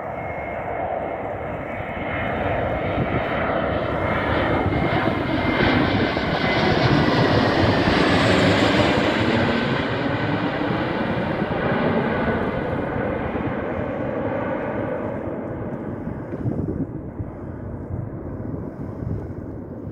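Airbus A321 jet airliner on final approach with gear down, flying low directly overhead: its jet engines grow louder to a peak about eight seconds in, the whine falling in pitch as it passes, then fade as it flies on toward the runway.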